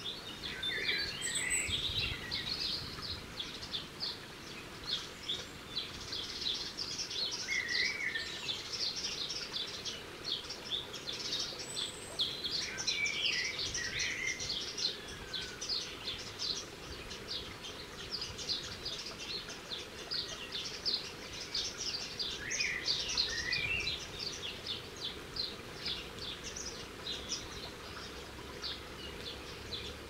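Garden birds chirping: a dense, continuous run of short high chirps, with several lower warbled phrases now and then, over a steady low background noise.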